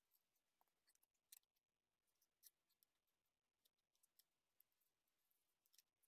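Very faint, scattered small clicks and scrapes of iPod parts being handled: the hard drive in its blue rubber protector knocking against the metal back case.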